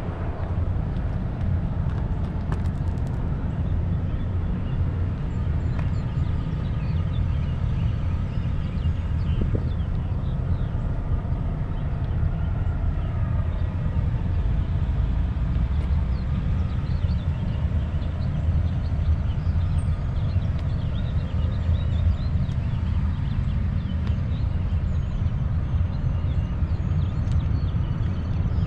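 Steady low road rumble of a vehicle under way, even in level throughout.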